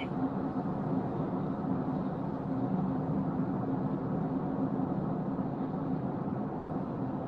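Steady road and engine noise of a moving car, heard from inside the cabin as an even low rumble.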